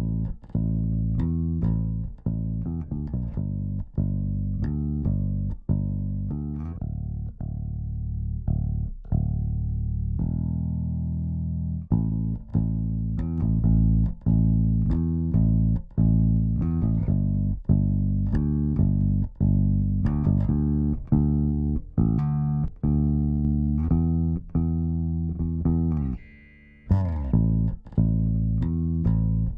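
Solo bass guitar line run through a compressor plugin: a run of plucked notes, a few held longer in the middle, with a brief pause near the end.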